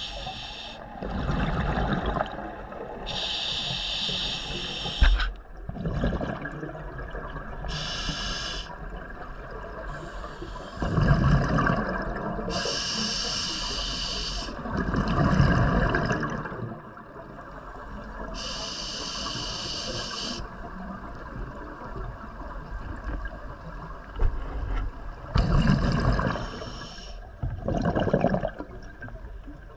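A scuba diver breathing through an open-circuit regulator underwater, several breaths in turn: a hiss from the demand valve on each inhale, then a low gurgling rush of exhaled bubbles.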